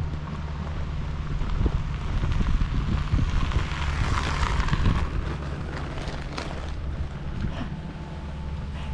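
Wind buffeting the microphone: a steady low rumble with a gust swelling in the middle, and a few sharp clicks in the second half.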